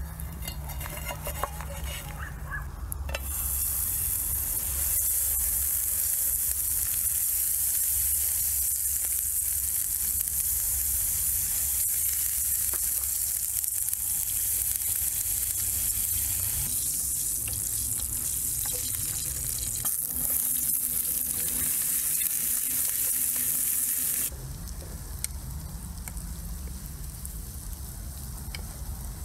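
Meat sizzling as it cooks, a steady hiss that starts suddenly a few seconds in and cuts off suddenly about five seconds before the end.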